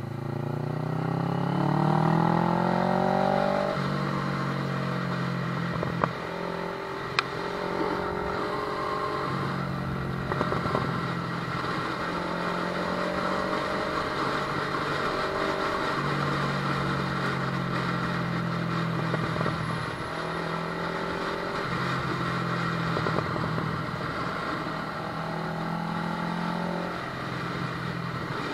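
Kawasaki ER-6n's parallel-twin engine under way, climbing in pitch as it accelerates for the first three or four seconds, then dropping at a gear change and running on at shifting engine speeds. Two sharp clicks come about six and seven seconds in.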